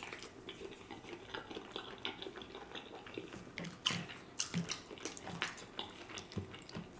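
Close-miked chewing of a mouthful of food: soft wet smacking mouth sounds with many small irregular clicks.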